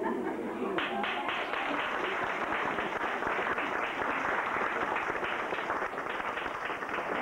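Audience applauding, a steady patter of many hands clapping that starts about a second in.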